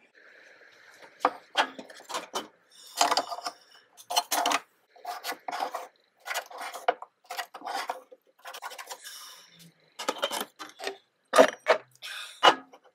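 Pencil scratching marking lines across the face of a lacewood bowl blank, guided by a plastic centre-finder template: a run of short rubbing strokes with short gaps between them. Near the end come two sharper knocks, the loudest sounds, as things are handled on the blank.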